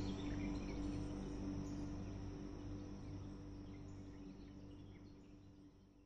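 Boat engine running with a steady hum, fading away to nothing near the end, with faint high chirps in the background.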